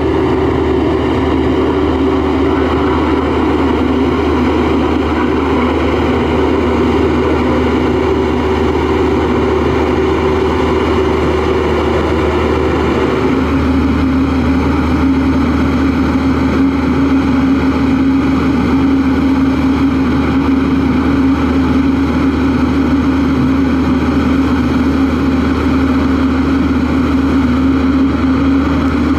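LiuGong single-drum vibratory roller compactor running steadily over crushed stone, a deep engine rumble with a steady hum over it. About halfway through, the hum drops to a lower pitch.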